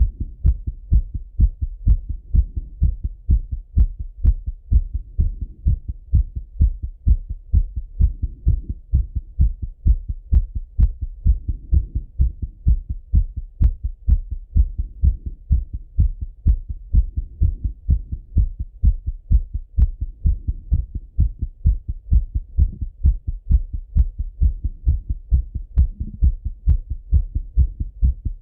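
A man's heartbeat heard through a stethoscope on the chest, thumping fast and regularly: a heart still racing after a run.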